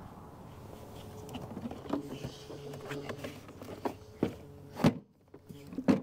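Plastic knocks and clicks as a Ridgid shop vac's powerhead lid is handled and set down onto its canister over a cloth filter sock. The knocks come irregularly, with the sharpest ones about five seconds in and at the end as the lid is pressed home.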